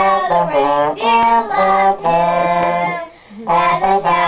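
Young girls singing a song in long held notes, with a short break about three seconds in.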